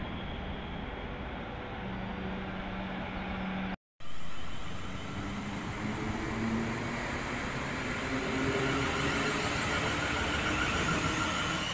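South Western Railway Class 450 Desiro electric train pulling away from the platform, its wheels running on the rails and its traction motors whining, rising in pitch as it speeds up. The sound drops out briefly about four seconds in.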